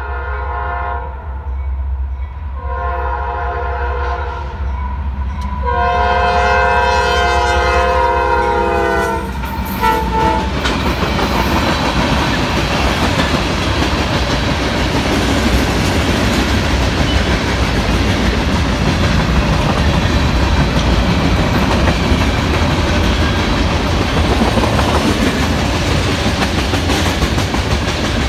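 Fouled Nathan P5 air horn on a Norfolk Southern AC44C6M locomotive, sounding a series of blasts for the crossing, the last long one about three seconds, then a short toot about ten seconds in. After that, a freight train of tank cars and hoppers passes close by with a steady, loud rumble and clatter of wheels on the rails.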